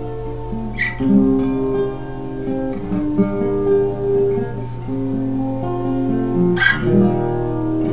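Acoustic guitar fingerpicked, an instrumental passage of overlapping picked notes over a steady bass. There are two short scratchy sounds, about a second in and near the end.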